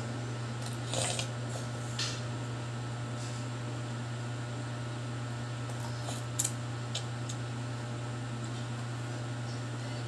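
A metal fork clicking and scraping against a bowl a few times as a toddler eats noodles: about a second in, at two seconds, and twice more around six to seven seconds in. A steady low hum runs underneath.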